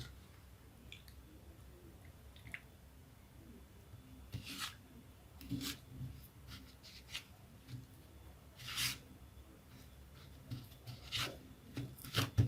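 Faint rustling and scraping of dry breadcrumbs as a raw chicken cutlet is pressed and turned in them by hand: a few short strokes, several seconds apart, with a quick run of them near the end.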